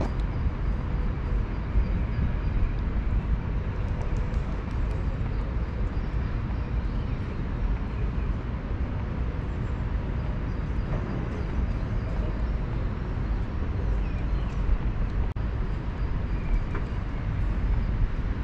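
Steady low rumble of city traffic, with no distinct event standing out.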